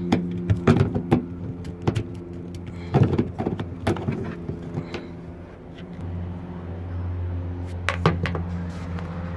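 Sharp plastic clicks and knocks as a Toyota Prius satellite-radio antenna base is worked loose from its roof clips and lifted off the car roof, over a steady low hum.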